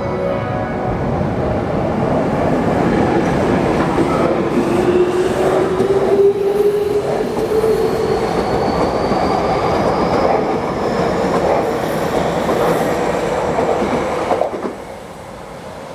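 Electric commuter train passing close by, its traction motors whining in a tone that rises steadily in pitch as it gathers speed over the clatter and rumble of the wheels on the rails. The sound drops away abruptly near the end.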